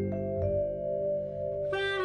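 Instrumental end-credits music, here a few long held notes, with a new phrase coming in near the end.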